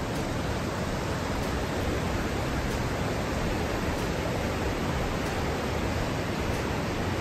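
Steady rush of a mountain creek flowing over stones through a narrow rock chasm, an even unbroken water noise.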